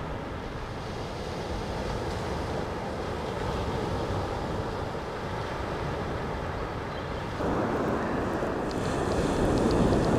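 Sea surf washing onto a sandy beach, mixed with wind rushing over the microphone; a steady rush that gets louder about seven seconds in, with a few faint ticks near the end.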